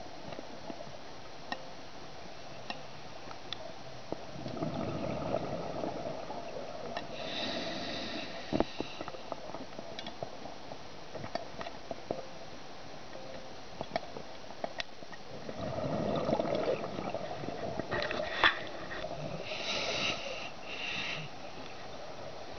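Scuba breathing heard underwater: two bursts of regulator exhaust bubbles, each about five seconds long and some ten seconds apart, with faint clicks in the quieter stretches between.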